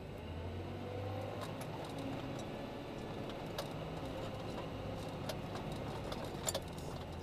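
Wheel loader's diesel engine running steadily, heard from inside the cab as a low hum, with a few faint clicks.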